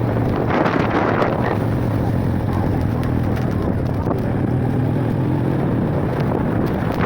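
Motorcycle running steadily on the road, with wind buffeting the microphone.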